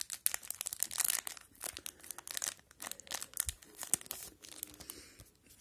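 An O-Pee-Chee hockey card pack's wrapper being torn open and crinkled, a dense run of quick crackles, as the stack of cards is slid out of it.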